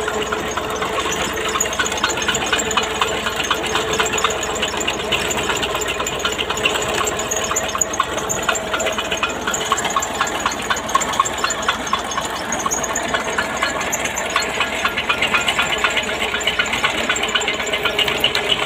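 Engine-driven sugarcane crusher (velna) running as cane stalks are fed between its ribbed metal rollers. The engine runs steadily, with a rapid, even clatter from the gears and rollers.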